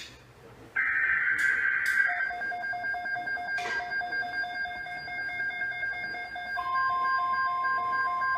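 Emergency Alert System SAME digital header data burst, a loud two-tone screech lasting about a second and ending about two seconds in. It is followed by a pulsing alarm beep over steady electronic tones. About six and a half seconds in, a steady pure tone joins: the NOAA Weather Radio 1050 Hz warning alarm tone that precedes a new alert.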